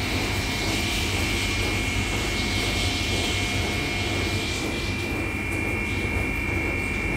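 Tammermatic T700 Lux car wash blower dryer running steadily: a strong rush of air with a constant high whine from the fans.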